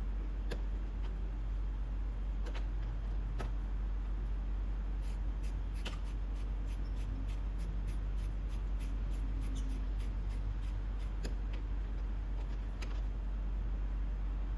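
Irregular light clicks and taps of hand tools and small parts being handled, over a steady low hum. The clicks come thickest in the middle of the stretch.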